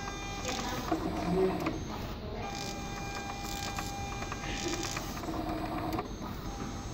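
Magicard XXL Pro ID card printer running a print job. Its mechanism gives a steady motor whine with clicks, which breaks off and starts again twice.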